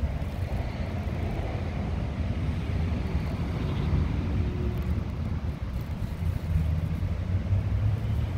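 Outdoor background noise: a steady low rumble with no distinct events.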